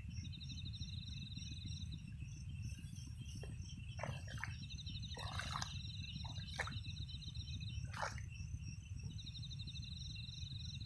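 Crickets trilling in a fast pulsing chirr that stops and starts in long stretches, over a steady low rumble. A few short knocks and rustles come through about halfway.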